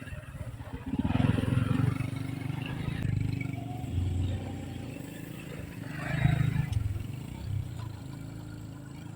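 An engine running, with louder swells about a second in and again around six seconds.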